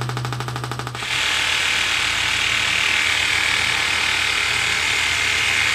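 Handheld percussive treatment device running with a steady mechanical buzz. About a second in, the low hum drops away and it settles into a higher, hissier buzz.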